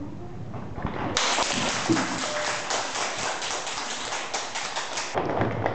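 A class of students applauding: a dense patter of hand claps that starts about a second in and cuts off suddenly near the end.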